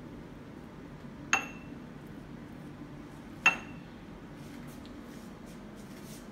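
Two sharp clinks of kitchen dishware about two seconds apart, each with a short bright ring, over a steady low hum.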